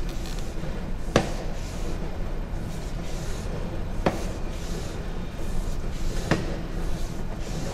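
Steady low rumble of equipment with three sharp knocks, about one, four and six seconds in, as a sewer inspection camera is pushed down the line.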